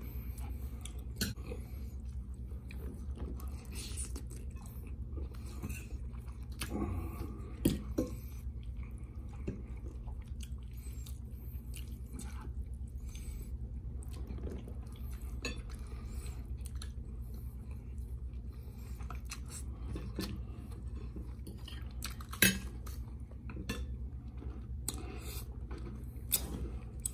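Close-up eating sounds: chewing and a metal fork clinking and scraping on a ceramic plate, with a few sharper clinks about 8, 22 and 26 seconds in. A steady low hum runs underneath.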